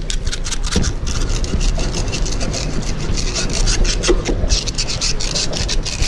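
Hobie Compass kayak's plastic hull scraping and rubbing along a barnacle-crusted bridge piling, with a dense run of quick crackling ticks over water sloshing between hull and piling.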